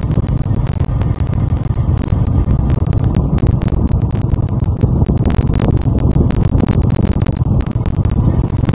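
Wind rushing over the microphone of a moving motorcycle, with many sharp crackles over a steady low rumble of engine and tyres on the road.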